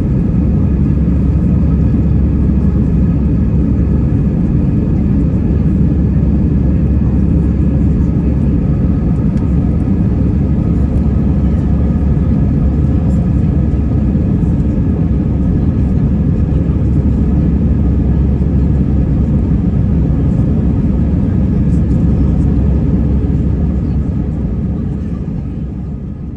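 Airbus A320 engine and airflow noise heard inside the passenger cabin: a steady, loud rumble with a few faint steady whining tones, fading out near the end.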